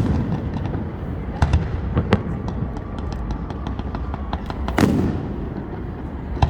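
Fireworks going off: sharp bangs about one and a half and two seconds in and a louder boom near five seconds, with scattered small crackling pops between them over a steady low rumble of more fireworks farther off.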